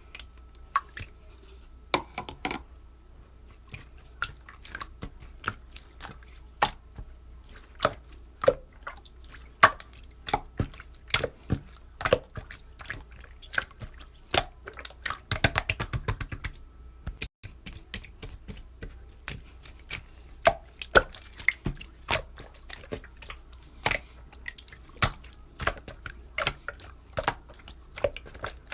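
A series of irregular sharp clicks and taps, one or two a second, with a quick rapid flurry about halfway through, over a low steady hum.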